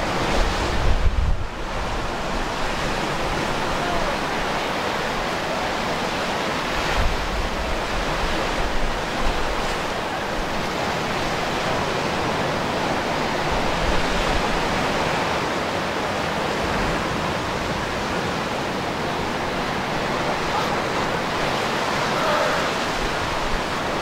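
Small surf breaking and washing up a sandy beach, a steady rushing wash of water, with low wind rumble on the microphone now and then.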